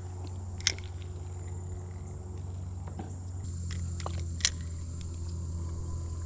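Insects droning steadily at a high pitch over a low, steady hum, with two sharp clicks about four seconds apart.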